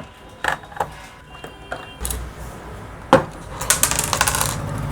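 Clicks and knocks of a 16-amp switch-socket board being handled and opened: a few separate clicks, then a sharp knock a little after three seconds and a quick run of rattling clicks.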